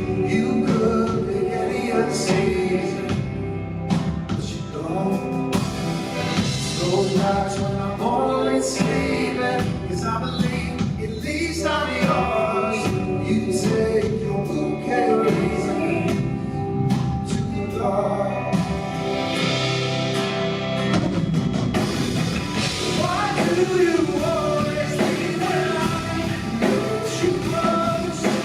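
Live band playing a song, with a lead vocal singing over the instruments.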